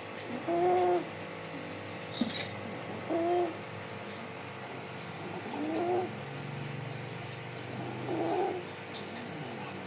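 A sleeping baby snoring: a short pitched snore with each breath, four times at even intervals of about two and a half seconds.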